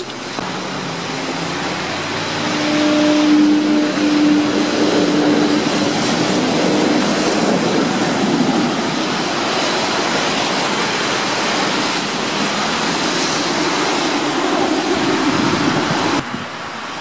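Tram pulling away close by: rolling wheels on the rails with a steady motor hum for the first few seconds, then a loud even rumble that cuts off suddenly near the end.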